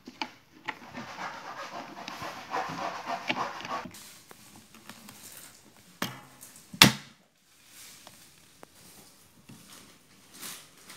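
Plastic parts of a rice dispenser being handled and fitted together: a rasping scrape of plastic on plastic for the first four seconds, then a single sharp snap about seven seconds in as a part clicks into its slot, followed by a few light knocks.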